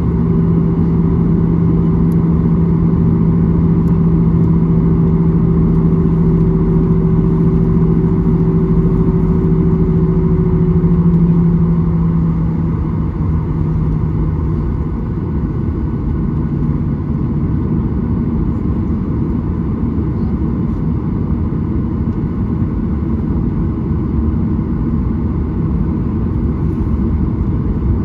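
Cabin noise of a Boeing 737-800 taxiing, its CFM56-7B engines running as a steady low rumble heard from a seat over the wing. A steady hum over the rumble fades out about halfway through.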